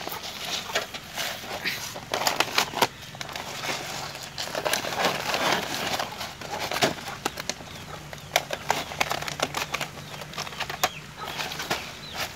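Irregular crackling and rustling, with many sharp clicks at uneven intervals.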